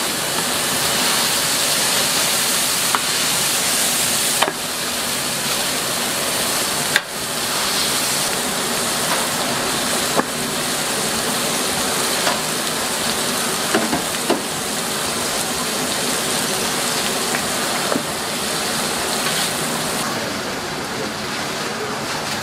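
Beef burger patties sizzling on a flat-top griddle: a steady hiss with a few sharp clicks scattered through it. The sizzle thins out near the end.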